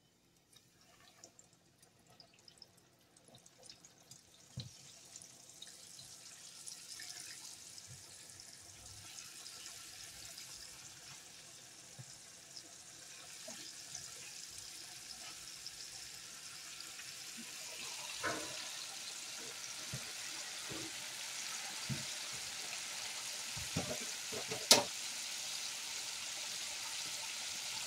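Hot oil frying in a pan: a sizzling hiss, faint at first, that grows steadily louder, with a few knocks and one sharp click about three seconds before the end.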